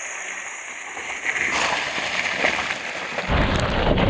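Land Rover Discovery driving hard up a steep, muddy, rocky slope in low range: tyres churning through mud and loose stone, getting louder about a second and a half in, with a loud low rumble from about three seconds in.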